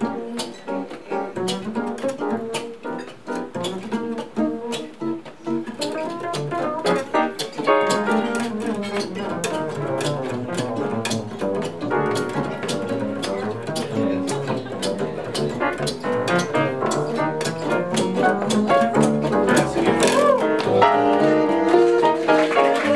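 Live jazz: a double bass plucked pizzicato carries the line while an archtop electric guitar plays along, the music growing a little louder toward the end.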